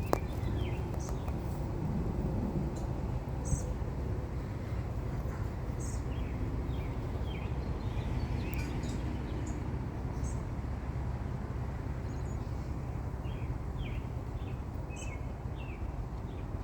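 A steady low hum, with scattered short bird chirps over it.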